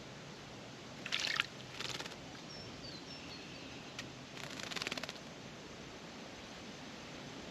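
A small bird bathing in a shallow birdbath: three brief bursts of splashing and fluttering, the first about a second in and the last, longest one about halfway through. A few faint high bird chirps come between them.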